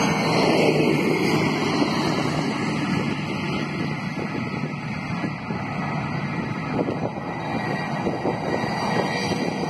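Sukhoi Su-30 jet engine noise: a loud, steady rush of sound, with a falling sweep in pitch over the first two seconds.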